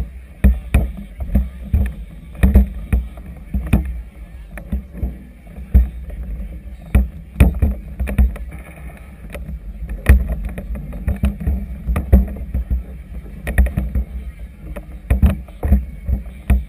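Choppy harbor water slapping against the hull of a floating vessel, irregular knocks a few times a second over a low rumble, heard through a GoPro's waterproof housing.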